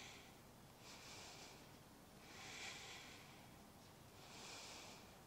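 A woman's slow, soft breathing, very faint: three long breaths about a second and a half apart.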